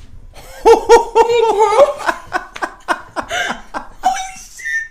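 A woman laughing, reacting to a chiropractic adjustment. It starts with a quick burst of high-pitched laughs about half a second in, then breaks into a run of shorter, breathier laughs that die away near the end.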